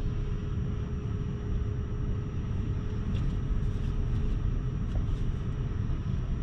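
Low, steady rumble of a car's engine and tyres heard from inside the cabin as the car pulls slowly away, with a faint steady hum beneath it.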